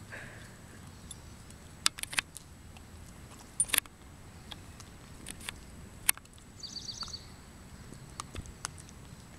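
Border collie puppy chewing a pine cone: scattered sharp cracks and crunches, the loudest about two, nearly four and six seconds in.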